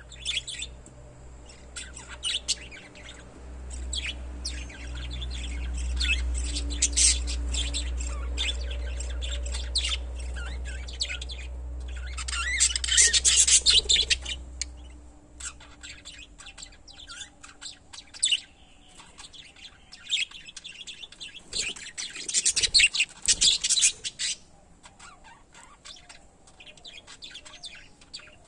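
A pair of small pet parrots chirping and chattering in rapid high bursts, loudest about halfway through and again near the end, over a low rumble that fades out about halfway.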